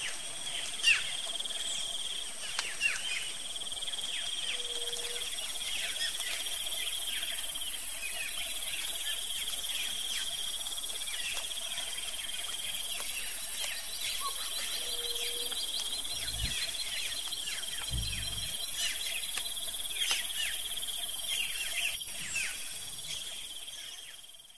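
Natural ambience of a steady, high-pitched insect trill with many short, downward-sweeping bird chirps over it, and a brief low note twice. It fades out at the end.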